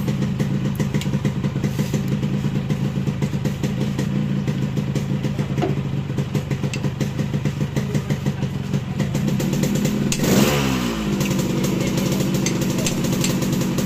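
Yamaha RX-King two-stroke single-cylinder engine idling steadily and sounding very smooth through its stock exhaust, which is fitted with a 'ngorok' baffle and is being tuned for a growling idle. About ten seconds in the throttle is blipped once and the revs drop straight back to idle.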